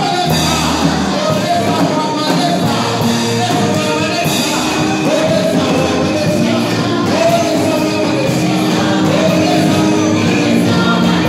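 Live gospel praise music: a group of singers leading a sung melody over drum kit and keyboard, steady and loud, with occasional shouts.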